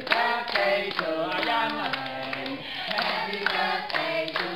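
A small group of people singing together, with hands clapping along in a steady beat.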